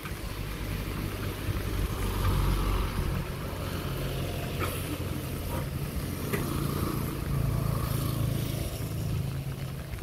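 Owner-type jeep's carbureted petrol engine running, swelling in level twice as the gear lever is worked, with a few sharp clicks; the jeep won't move off, a fault the family puts down to the transmission rather than the engine.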